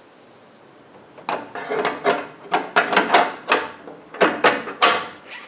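Half-horsepower three-phase electric motor being set by hand into the Emco PC5 lathe's motor bracket: a run of knocks and scrapes as the motor body meets the bracket, starting about a second in and ending shortly before the end.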